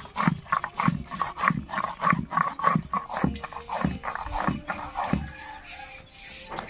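A hand grinding stone (sil-batta) scraping back and forth over a flat stone slab: rhythmic strokes about one and a half a second, stone on stone with wet spice paste between, easing off near the end.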